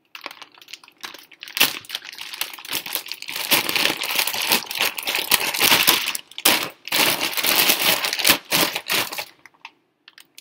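Plastic spawn bag of mycelium-colonized rye grain crinkling and rustling as it is turned over in the hands. The crackling runs for about nine seconds, louder in the middle, and stops shortly before the end.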